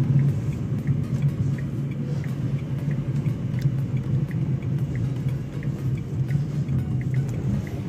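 Steady low rumble of a Nissan Magnite XE's engine and tyres, heard inside the cabin as the car slows in gear under engine braking. The hazard indicators tick faintly and evenly over it.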